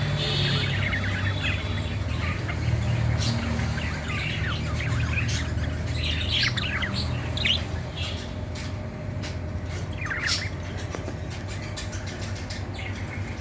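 Budgerigars in breeding condition chirping and chattering, many quick high chirps overlapping, over a steady low hum.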